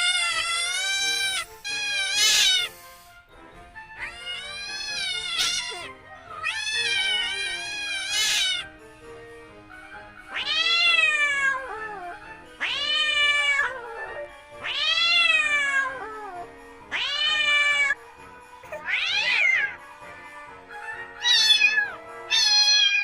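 A cat meowing again and again, about ten high, drawn-out meows with short pauses between them, over faint background music.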